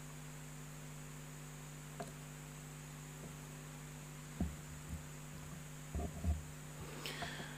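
Steady electrical mains hum from the sound system, with a few soft low thumps about halfway through and a faint rustle near the end as the pages of a Bible are handled at the pulpit.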